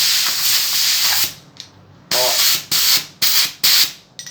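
Compressed-air blow gun blasting air through an axial tie rod ball joint, blowing out gasoline and dirt: one long hiss of just over a second, then four short blasts in quick succession.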